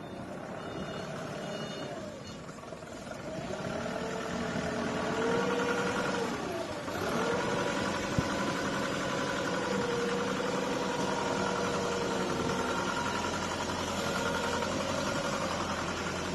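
Engine-driven welding machine running with a steady note. About six to seven seconds in, its pitch dips sharply and recovers as the machine takes up load, then holds steady. A single click comes just after.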